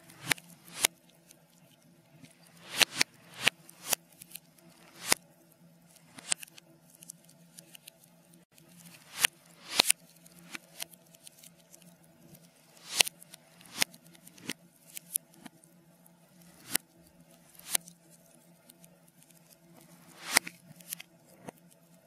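Wood fire crackling, played backwards: irregular sharp pops every second or so, each swelling up and then cutting off abruptly instead of snapping and fading, over a faint steady low hum.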